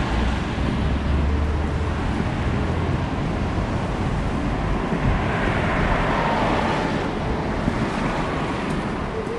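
Steady rain falling on an umbrella overhead, mixed with the hiss of traffic on the wet road; a vehicle's tyres swish past on the wet road about halfway through.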